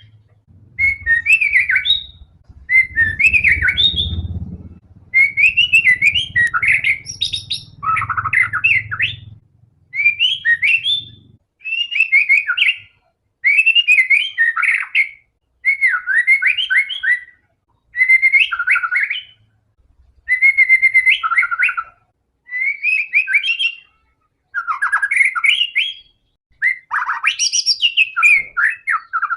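White-rumped shama (murai batu) singing loudly in short, varied whistled phrases. Each phrase lasts about a second, and they come roughly every two seconds with brief pauses between them. A low rumble sits under the phrases during the first few seconds.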